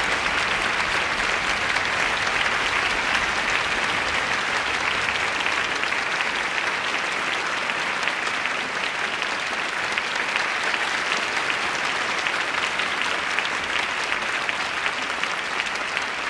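Large theatre audience applauding steadily, a dense, even clapping that neither builds nor fades.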